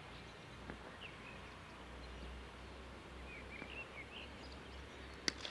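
Quiet open-country ambience: small birds chirping briefly here and there over a faint low rumble, with a single sharp click near the end.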